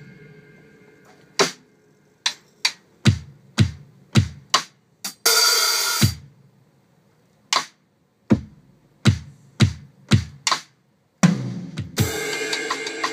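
Acoustic drum kit played solo: single strikes on the drums and bass drum, spaced out with pauses between them. About five seconds in, a short burst of cymbal is cut off sharply. Near the end comes a loud crash that keeps ringing.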